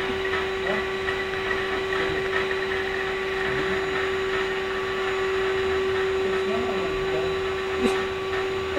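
Vacuum cleaner running steadily with a constant motor hum and rushing airflow.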